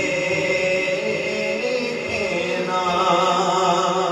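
Urdu naat: sustained chanted vocal melody with a backing vocal drone. A fuller, higher sung line comes in near the end.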